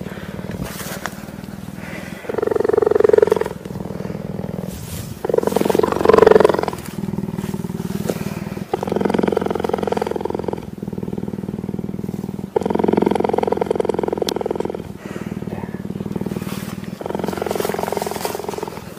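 Cheetah purring as its head is stroked: a continuous low rumble that swells louder about five times, with each breath.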